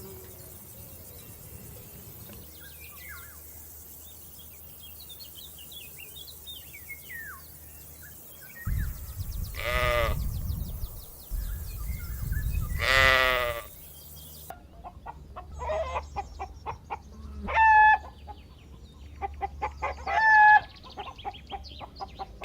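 Faint high chirps, then two long, wavering bleats from a farm animal about three seconds apart. After that come rapid clicking and a few short, sharp calls.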